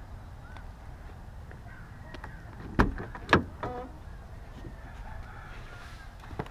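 Two sharp clicks about half a second apart from a Jaguar XF's driver-door handle and latch as the door is pulled open.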